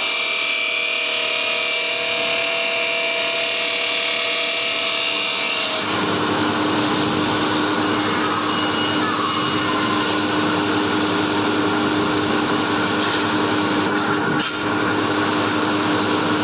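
CNC knife-teeth grinding machine running, its wheel grinding steel with a steady rasping noise. About six seconds in the sound changes from several steady whining tones to a rougher grind with a single lower hum.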